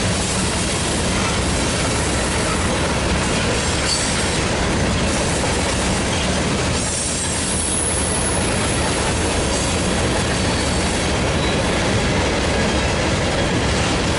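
Steel wheels of a freight train's tank cars rolling past on the rails, a steady loud rumble with clickety-clack from the rail joints. A thin high wheel squeal comes in for a couple of seconds midway.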